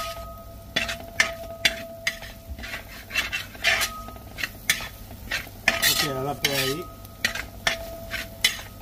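A metal spoon stirring and scraping masala frying in rendered beef fat in a pan, with repeated clicks of the spoon against the pan over a light sizzle.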